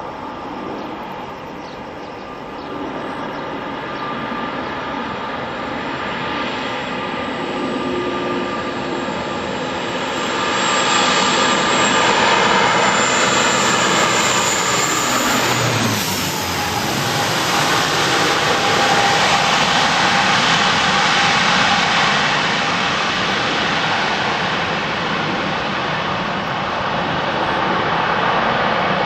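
Twin-engine turboprop airliner passing low overhead on landing approach: its engine and propeller whine grows louder, then drops in pitch as it passes over about halfway through, leaving a steady rushing engine noise.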